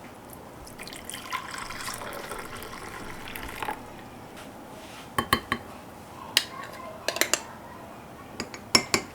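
Liquid poured into a cup for about three seconds, then a spoon clinking sharply against the cup several times in small groups.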